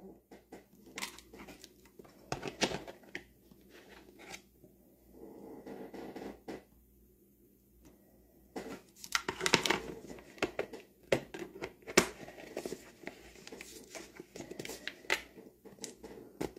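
Plastic clicks, scrapes and rustles of a respirator filter cartridge being handled and screwed into the port of a full-face mask, busiest a little past halfway.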